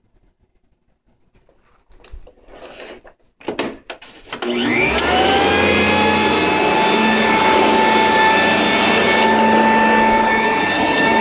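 Sanitaire commercial 16-inch upright vacuum cleaner: a few clicks and knocks, then about four and a half seconds in the motor switches on and spins up with a rising whine, settling into a steady loud run with a high whine as it works over carpet.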